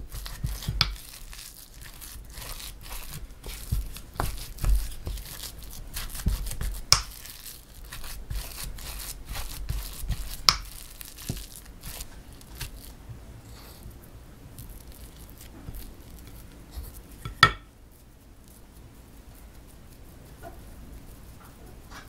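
Crumbly red bean filling with chopped jujubes and nuts being mixed in a glass bowl by hand and with a wooden spoon: a dense run of squishing and scraping, with a few sharp knocks of the spoon against the glass. It quiets after about eighteen seconds to soft handling as the filling is rolled.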